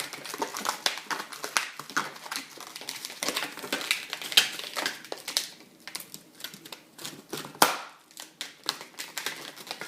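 Inflated latex modelling balloons squeaking and rubbing against each other as they are handled and twisted, a busy irregular run of sharp squeaks and crinkly clicks, with two louder snaps about four and seven and a half seconds in.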